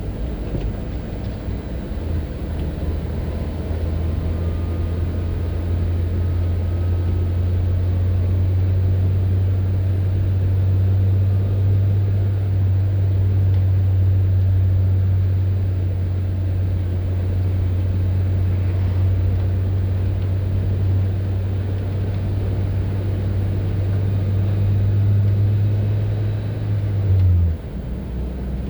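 A car driving along a highway, with a steady low drone that holds for most of the stretch and then drops suddenly in pitch near the end.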